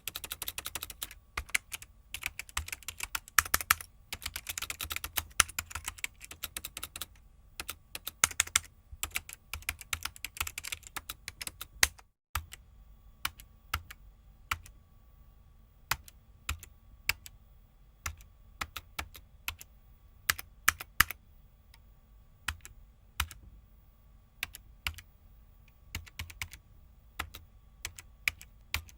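Typing on a computer keyboard: quick, dense keystrokes for about twelve seconds, then after a brief break, slower and sparser keystrokes over a faint steady hum.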